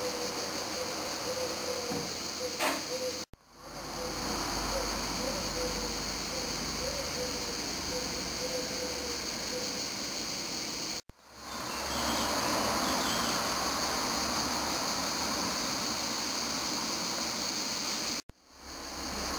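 Steady background hiss with a faint high whine, broken three times by sudden short dropouts where the sound cuts out and fades back in at edit points.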